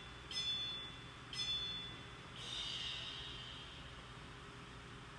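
Workout interval timer counting down: short high beeps about a second apart, then a longer, buzzier tone about two and a half seconds in signalling the start of the next work interval. A steady low hum runs underneath.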